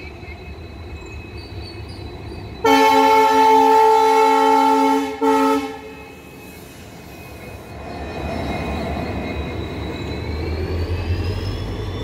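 WDP4B diesel locomotive's horn sounding one long blast of about two and a half seconds and then a short second blast. Then the locomotive passes close by, and the low hum of its EMD 16-cylinder two-stroke engine and the rumble of the wheels swell.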